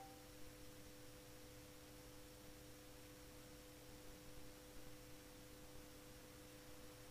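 Near silence: a faint steady hum of two low tones over room hiss.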